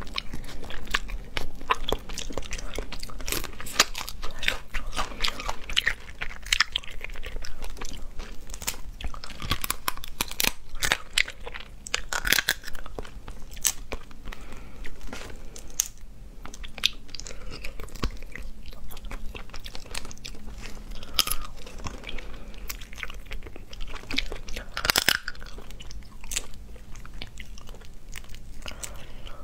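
Shells of cooked shellfish cracked and peeled apart by hand close to the microphone: irregular sharp crunches and clicks throughout, mixed with chewing.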